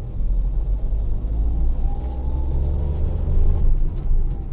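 Tata Altroz three-cylinder engine accelerating in second gear, heard inside the cabin: a steady low drone with a faint tone that rises about a second and a half in. This is the run the owner uses to show a rattling sound he calls very irritating, which comes in under load.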